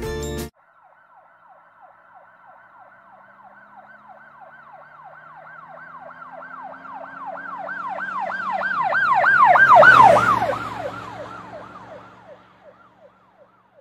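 Emergency-vehicle siren in a fast yelp, about three rising-and-falling sweeps a second, with a faint low rumble under it. It grows louder as it approaches, is loudest about ten seconds in, then fades away as it passes. Music cuts off about half a second in.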